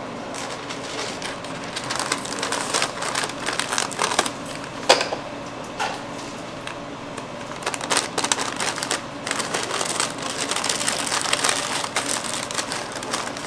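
Sheets of white wrapping paper rustling and crinkling in irregular bursts as a bagel sandwich is folded up in them by hand, with one sharp knock about five seconds in.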